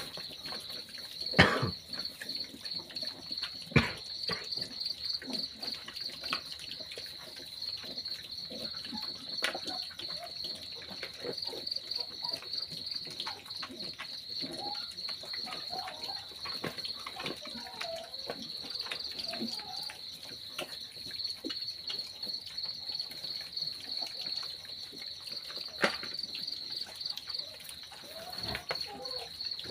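Crickets chirping in a steady, pulsing high trill, over piglets snuffling and chewing at a feed bowl. A few sharp knocks stand out, the loudest about a second and a half in.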